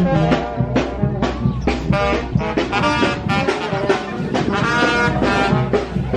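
Upbeat music led by brass horns over a steady beat and bass.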